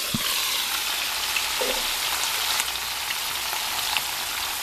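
Smoked sausage, bell pepper and onion sizzling in oil in a frying pan on low heat: a steady hiss with a few small pops.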